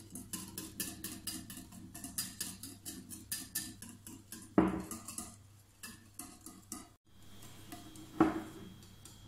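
Wire whisk beating egg whites by hand in a bowl: fast, rhythmic clicking and scraping of the wires against the bowl, with two louder knocks, about halfway through and near the end. The whites are foamy and being whipped on toward stiff, snow-white peaks.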